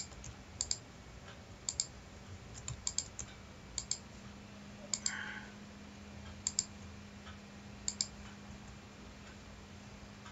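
Computer mouse clicking: about seven sharp clicks spaced roughly a second apart, each a quick press-and-release pair. A faint steady low hum runs underneath.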